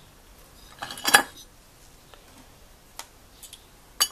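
Metal parts of a dismantled D8 moped engine clinking and knocking on a wooden workbench as they are handled. There is a short clatter about a second in, the loudest sound, then single sharp clicks about three seconds in and near the end.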